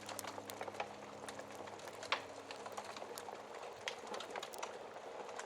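Wood fire crackling in a fireplace: a steady hiss with many small irregular snaps and one louder pop about two seconds in. The tail of soft background music fades out in the first couple of seconds.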